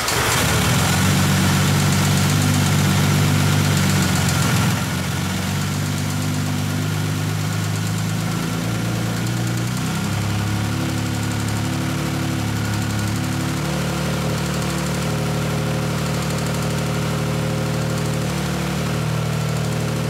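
1959 Aston Martin DB4's twin-cam straight-six engine running again after decades laid up, its ignition fault cured with new parts. It runs at raised revs for about the first five seconds, then settles to a steady idle.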